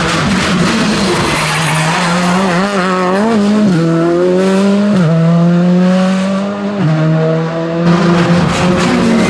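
Rally car engine at high revs, accelerating through a tarmac bend. The pitch wavers, then climbs and drops sharply twice, about five and seven seconds in, as it shifts up.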